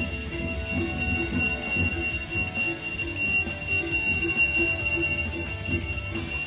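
Brass puja hand bell rung continuously during aarti, a steady high ringing. Underneath it a lower beat of strikes comes about three times a second.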